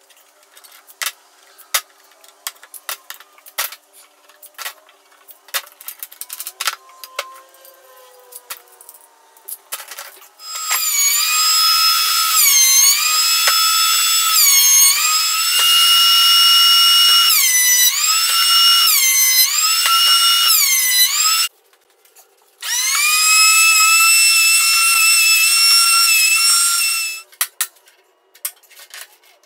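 Scattered light clicks and knocks for the first ten seconds or so. Then a Porter-Cable benchtop thickness planer runs with a loud high whine whose pitch dips and recovers several times as it takes cuts. After a break of about a second, a similar motor whine runs again for about five seconds.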